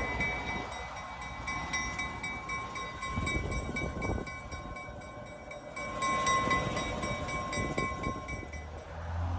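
Diesel locomotive hauling a passenger train slowly past, its engine rumbling and wheels running on the rails. A high ringing tone repeats in a quick, even rhythm, typical of a locomotive bell, and stops shortly before the end.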